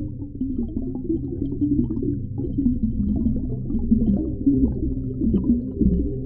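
Underwater ocean ambience: a muffled low rumble with wavering low tones that slide up and down.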